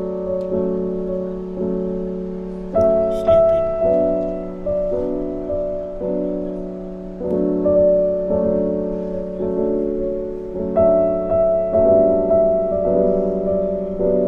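Background music: a slow, gentle piano piece, its notes and chords struck about once a second and each left to fade.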